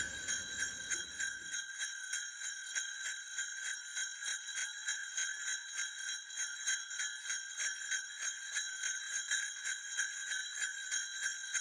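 Sleigh bells jingling in a steady rhythm of shakes, a few per second, with a high, bright ring, as the last orchestral sound dies away in the first second or so.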